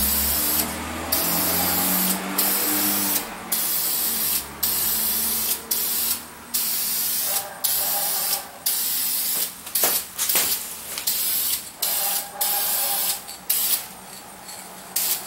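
Aerosol can of VHT brake caliper clear coat spraying in a series of short hissing bursts with brief pauses between them, as a coat is laid onto a painted brake caliper.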